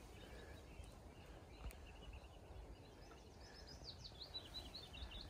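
Faint outdoor quiet with a small bird singing a quick run of high chirps, starting about two seconds in and growing busier near the end.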